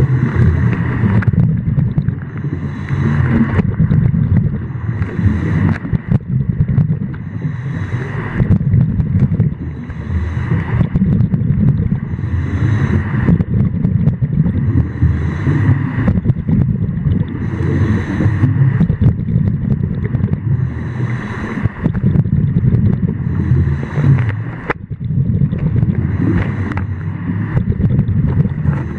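Water moving around an underwater camera: a steady low rumble with a hissing surge every two to three seconds.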